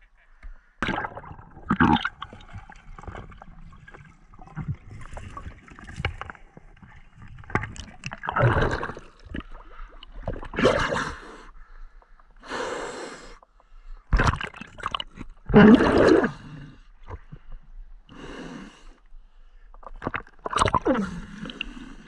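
Water splashing and gurgling as a sunken bicycle is wrestled through shallow water, the camera dipping at the surface, with heavy breaths from the effort. The sound comes in irregular surges every second or two.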